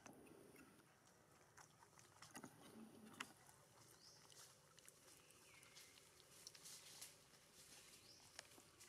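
Near silence: faint forest ambience with scattered small ticks and rustles and a few faint high chirps.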